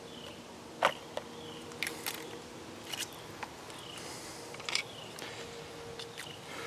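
A few sharp clicks and knocks, the loudest about a second in, from a hunter shifting about with his bow and gear. Short high chirps falling in pitch repeat about once a second behind them, over a faint steady hum.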